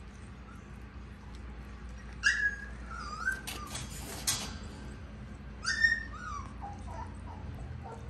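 Husky puppy whimpering: two high squeals that fall in pitch, about two and five and a half seconds in, then softer, lower whines near the end.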